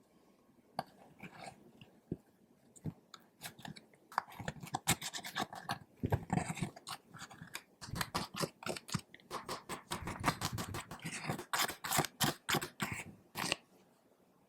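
Clear slime being squished and stretched by hand, making sticky clicks and pops: a few at first, then a dense run from about four seconds in that dies away near the end.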